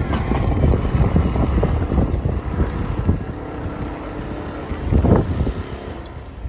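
Train passing over a level crossing: a steady low rumble of wheels on rail with irregular knocks, getting quieter toward the end.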